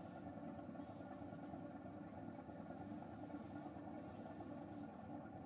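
Steady drone of the car ferry's engines under way, mixed with wind buffeting the camera's unshielded built-in microphone.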